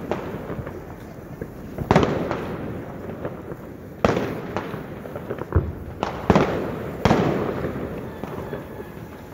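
Fireworks going off: several loud bangs a second or two apart, each followed by a long echo, with a couple of smaller bangs between them.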